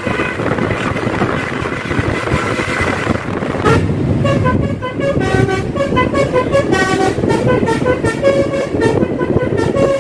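Tour bus's multi-tone 'basuri' telolet horn playing a tune of stepping notes, starting about four seconds in, over road noise from the moving vehicles.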